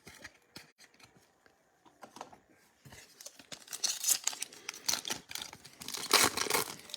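A trading-card pack wrapper being torn open and crinkled. It starts with a few light clicks and turns into dense, louder tearing and crinkling after about three seconds, loudest near the end.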